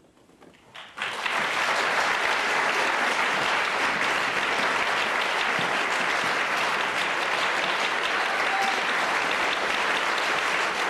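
Concert audience applauding, breaking out suddenly about a second in and then going on steadily: the applause that greets the end of a piece.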